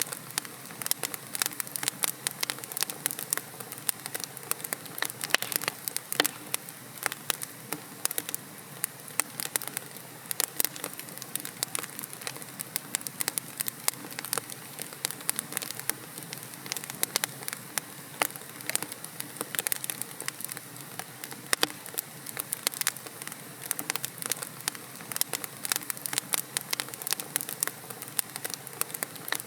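Wood fire burning in a fireplace: logs crackling with many small, irregular pops over a soft steady hiss.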